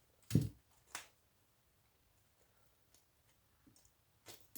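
A few short clicks and knocks of small scrap parts being handled while electronics are stripped for copper, the strongest two in the first second, then only faint ticks near the end.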